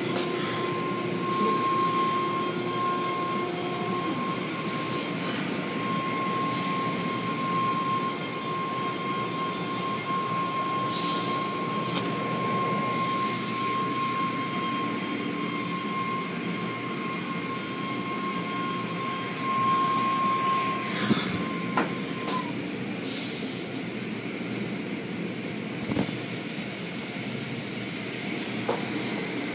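Automatic tunnel car wash heard from inside a car: a steady noise of spraying water and wash machinery, with a steady high whine that stops about 22 seconds in and a few scattered knocks.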